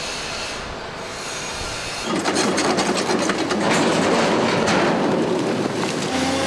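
Large boulders sliding off a tipping dump truck's bed and tumbling down a riverbank: a loud rumbling clatter of rock on rock and steel that starts suddenly about two seconds in. The stones are being dumped to stabilise the riverbed.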